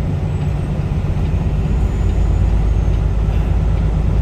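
Peterbilt 579 semi truck's diesel engine running, heard as a steady low rumble from inside the cab.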